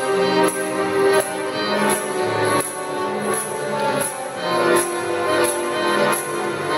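Accordion ensemble playing a piece together: sustained reedy chords and a moving melody over a bass line, with a sharp high tick marking a steady beat about every two-thirds of a second.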